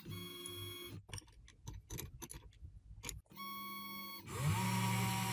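CNC router spindle winding down, then about two seconds of sharp, irregular clicks and ticks from the machine. About four seconds in the spindle spins back up with a rising whine and runs steadily.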